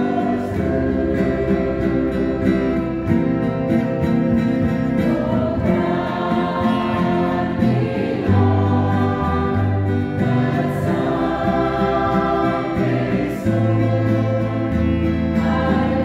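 Church choir singing a hymn in long held chords, accompanied by two strummed acoustic guitars.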